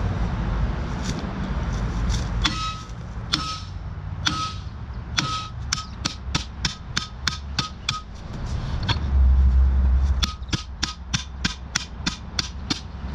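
Hammer blows on metal, each with a short ring: a few slow strikes speeding up to about three a second, a pause, then another quick run of strikes.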